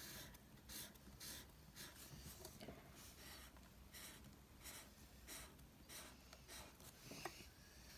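Black marker scratching faintly on sketchbook paper in short repeated colouring strokes, about one to two a second.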